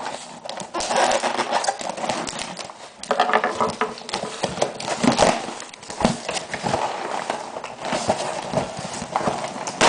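Packaging being handled and unwrapped close to the microphone: continual irregular rustling and crinkling with small knocks and clicks.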